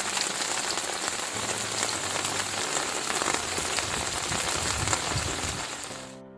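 Heavy rain falling steadily on a surface, a dense hiss of drops that fades out about six seconds in.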